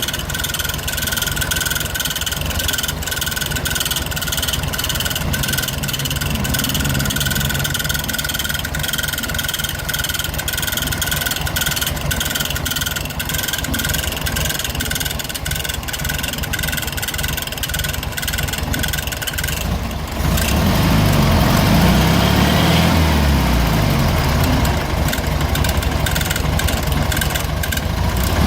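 Air-cooled flat-four engine of a 1970 VW Beetle running at idle with a rapid metallic clicking noise, whose cause the owner does not know. About twenty seconds in the engine sound gets louder and deeper.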